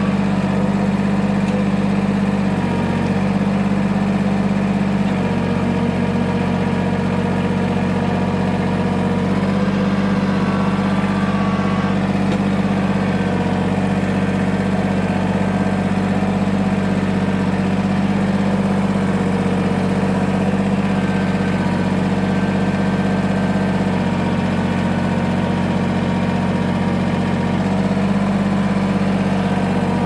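Kubota BX23S sub-compact tractor's three-cylinder diesel engine running steadily while its front loader lifts a heavy log, the engine note shifting slightly a few times.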